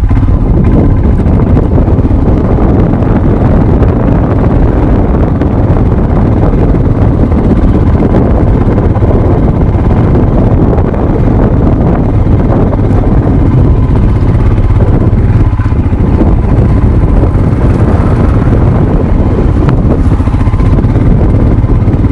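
Motorcycle engine running steadily at low speed along a rough dirt trail, heard from a helmet-mounted camera with a heavy low rumble on the microphone.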